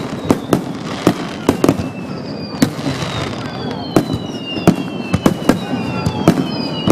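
Aerial fireworks shells bursting in rapid succession, a dense string of sharp bangs, with several falling whistling tones joining about two seconds in. The bursts are picked up by a digital camera's built-in microphone, which makes the booms sound odd.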